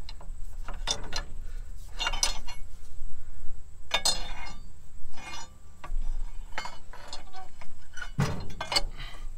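Sharp metallic clicks and clinks from a long-handled wrench on bolts threaded into the crank pulley of a seized V8, as it is heaved against the crankshaft at uneven intervals. The crank does not turn and the bolts are bending instead: the engine is stuck.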